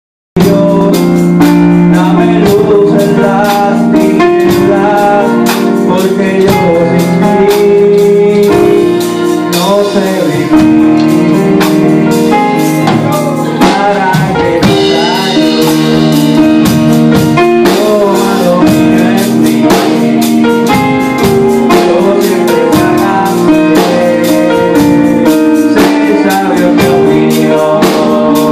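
Live worship band music played through a PA: electric keyboard and drum kit keeping a steady beat while a man sings into a microphone.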